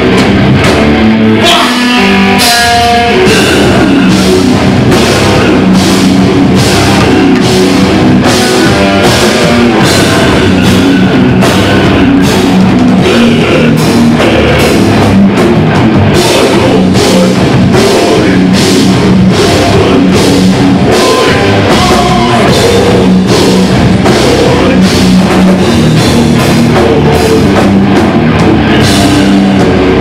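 Live heavy metal band playing loudly: electric guitars and a pounding drum kit with steady, even drum hits.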